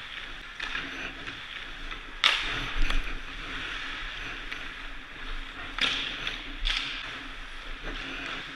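Hockey skate blades scraping and hissing on rink ice, with several sharp knocks and scrapes standing out, loudest about two seconds in and again near six seconds.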